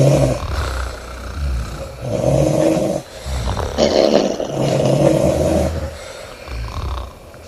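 A woman snoring loudly, a run of rough snores a second or two apart, with one longer snore of about two seconds in the middle.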